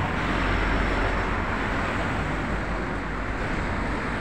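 Steady road traffic noise from vehicles passing on a busy road, heard as a low, even rumble with no distinct events.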